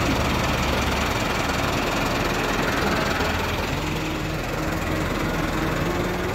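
Tractor's diesel engine running steadily at low speed, its note shifting slightly around the middle.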